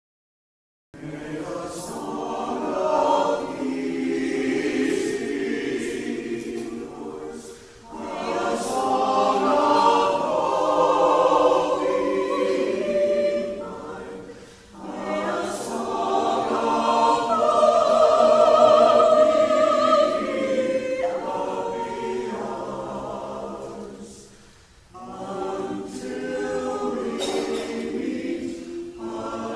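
Choir singing a piece in long phrases, starting about a second in after a moment of silence, with three short breaks between phrases.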